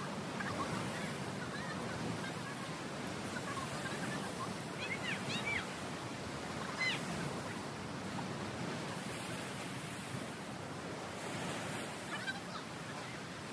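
Ocean surf washing onto a rocky beach, a steady rush of waves. A few faint high calls come through about five and seven seconds in.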